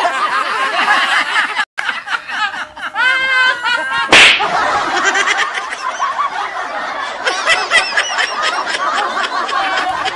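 Several people laughing hard together, in high-pitched giggles and shrieks, with one loud sharp smack about four seconds in.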